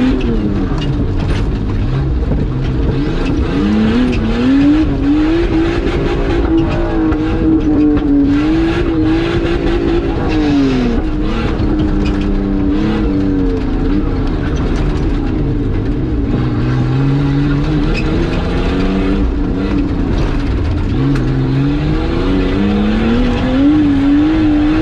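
Nissan Patrol with a Nissan Skyline engine, heard from inside the cab as it drives hard over rough off-road ground. The engine revs rise and fall again and again, with knocks and rattles over the bumps.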